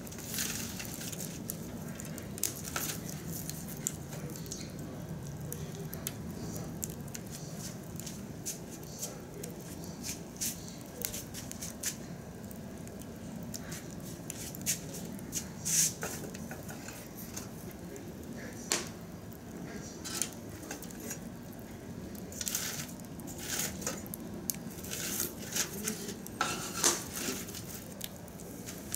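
Wood fire burning in a metal drum stove, crackling and popping irregularly over a steady low background, with a few sharper pops about halfway through and near the end.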